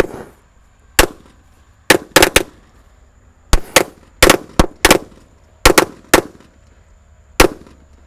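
A pack of Corsair XL 'korek' firecrackers going off in a hole in the soil: about a dozen sharp bangs at irregular intervals, some two or three in quick succession, the last one near the end.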